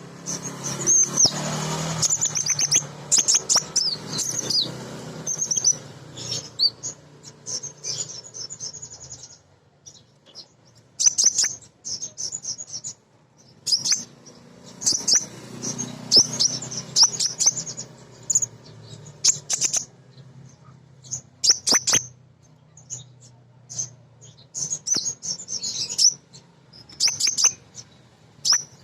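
Female sunbird (kolibri ninja) giving rapid, high-pitched twittering chirps in repeated bursts, with a few sharp clicks between them.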